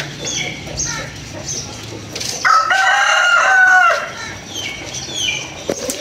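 A rooster crowing once in the middle, one long call of about a second and a half, with short high chirps falling in pitch scattered around it.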